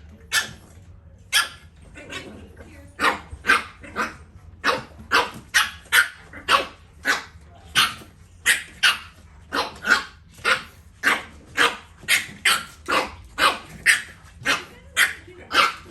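French Bulldog puppies barking in play: short, sharp, high-pitched barks, a few spaced ones at first, then a steady run of about two a second.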